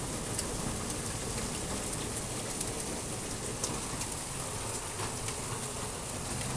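Heavy rain falling steadily, with a few sharp ticks scattered through it as light hail starts to come down with the rain.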